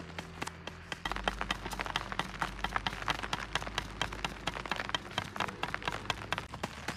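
Rapid, irregular crackling and rustling of dry leaf-litter ant-nest debris on a plastic tarp, growing thicker and louder about a second in.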